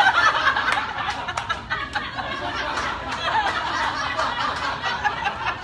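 A live audience laughing together at a joke line, many voices overlapping.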